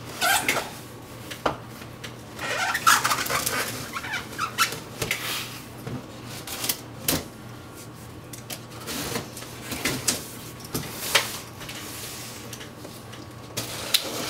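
A blade cutting and slitting packing tape on a cardboard box: irregular scraping and tearing noises of tape and cardboard, broken by sharp clicks.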